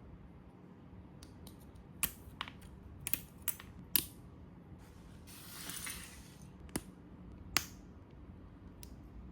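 Hard plastic parts of a snap-fit model kit clicking as they are handled and pressed together: a string of sharp separate clicks, with a brief rustle of packaging around the middle.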